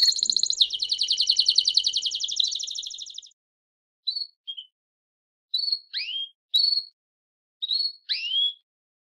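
Songbird singing a tutor song: a fast trill of rapid repeated high notes fades out about three seconds in, followed by short separate chirps and rising whistled sweeps with pauses between them.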